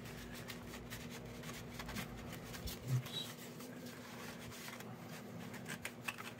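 Faint rustling and scraping of cardstock and paper as a folded card is pushed into a paper envelope, with many small crinkles and ticks.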